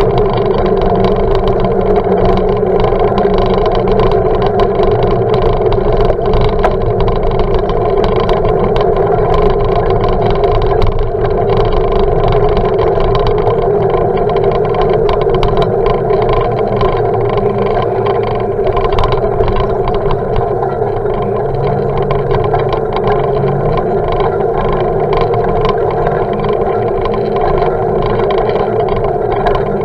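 Steady rush of wind and road rumble from a bicycle ride, picked up through a sealed action-camera housing, with small clicks and rattles from bumps in the road surface.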